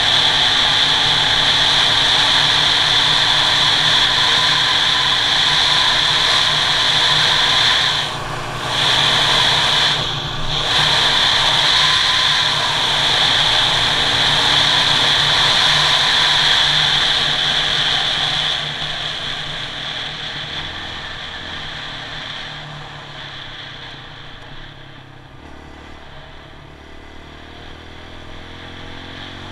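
Kawasaki KLX 140G dirt bike's single-cylinder four-stroke engine running steadily at road speed, with rushing noise. The sound dips briefly twice about a third of the way in as the throttle is closed for a moment. From about two-thirds of the way in, the engine eases off and quietens as the bike slows.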